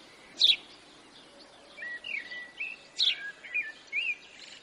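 Birds chirping: a loose string of short whistled chirps and slurred notes, the sharpest about half a second and three seconds in, over a faint steady hiss.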